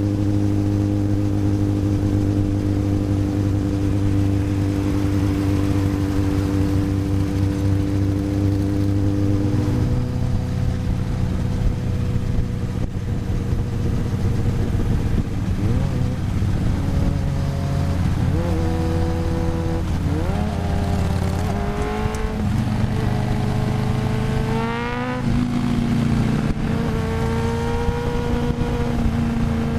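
1993 Yamaha YZF750SP inline-four running through a full Black Widow aftermarket exhaust with the EX-UP valve deleted. It holds a steady note for about the first third, then from about halfway the revs climb and fall again several times, settling on a higher steady note near the end.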